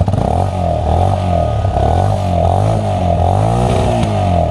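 XM200 motorcycle's single-cylinder engine being revved with the throttle, its pitch rising and falling several times in a row.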